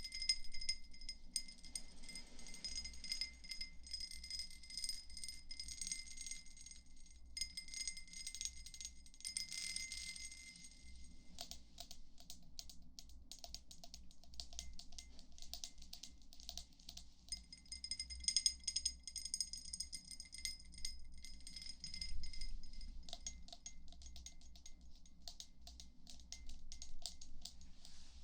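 ASMR trigger sounds: many light, quick taps and clicks over steady high chiming tones. The chiming drops out for a few seconds about halfway through and then comes back.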